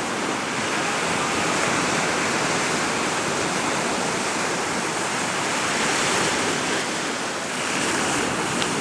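Sea surf breaking and washing up the shore: a steady rush of water noise that swells and eases gently a few times.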